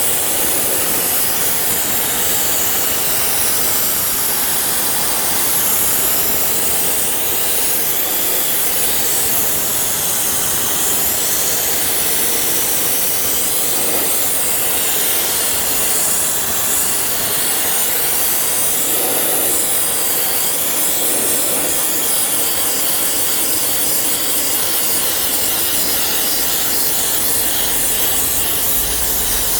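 Loud, steady hissing of a high-pressure cleaning jet being worked over a car's radiator, air-conditioning condenser and intercooler cores, its tone shifting as the spray moves across the fins.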